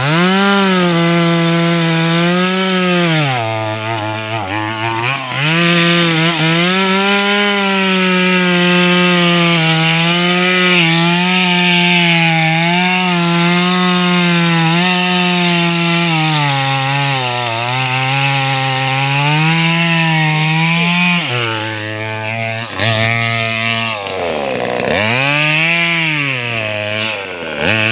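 Two-stroke top-handle chainsaw cutting into teak tree roots at full throttle. Its engine pitch drops repeatedly as the chain bogs down in the wood and climbs back as it frees up, and near the end it is revved up and down a few times.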